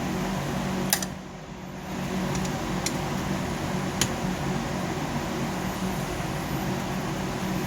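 Steady mechanical hum that dips briefly about a second in, with a few sharp clicks from small metal parts being handled.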